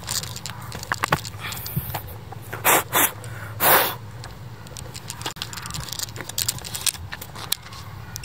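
Handling noise of a handheld camera swept low over the ground: scattered clicks, scrapes and rustles, with three short loud rushes of noise about three seconds in.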